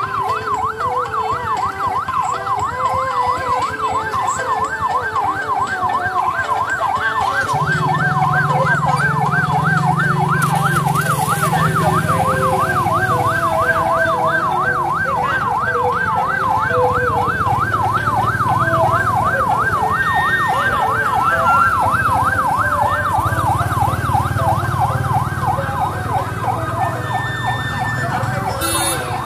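Police patrol vehicle's electronic siren on a rapid warble, its pitch sweeping evenly up and down several times a second without a break. Vehicle engines run beneath it, louder from about eight seconds in.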